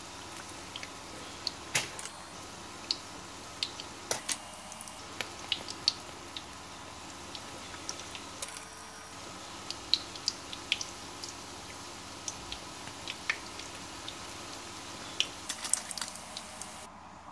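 Batter rings frying in hot sunflower oil: a steady sizzle with many scattered sharp pops and crackles.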